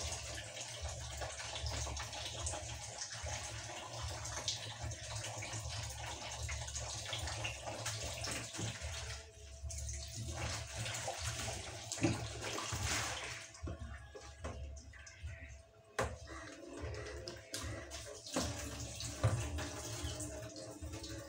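Kitchen tap running and splashing into a basin as dishes are washed by hand. About two-thirds of the way through the rush of water drops away, leaving a few sharp knocks of dishes and basins.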